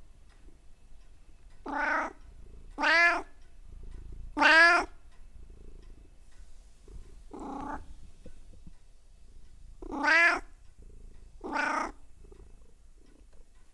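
Domestic cat meowing six times, each call about half a second long, spaced irregularly a second or more apart, over a faint low rumble.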